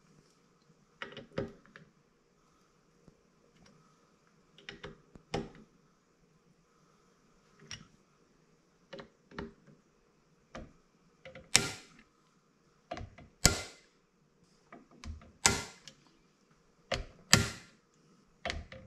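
Sharp mechanical clicks, mostly in pairs, about every one to two seconds and louder in the second half: a torque driver clicking over at its set torque of 15 inch-pounds on the scope-ring screws.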